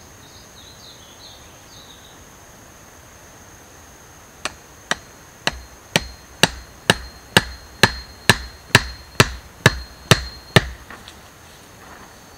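Repeated hammering blows at ground level: about fourteen sharp strikes at roughly two a second, starting about four seconds in and stopping shortly before the end. A steady high-pitched insect trill runs underneath.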